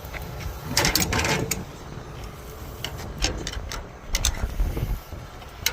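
Metal clicks and scrapes of a wrench working loose the 1/2 inch nut on a mailbox lock: a cluster of clicks about a second in, then scattered single clicks, over a steady low rumble.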